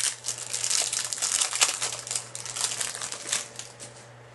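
Plastic wrapper of a trading-card pack being torn open and crumpled by hand, a dense crinkling that dies down near the end.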